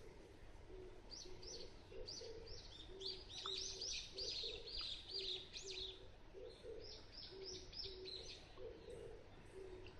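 Small wild birds chirping in quick runs of short, high notes, over the low, repeated cooing of an oriental turtle dove.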